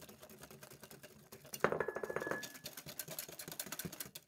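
Wire balloon whisk beating a runny egg and lemon filling in a glass mixing bowl: a fast run of light clicks and scrapes as the wires strike the glass, a little louder about halfway through.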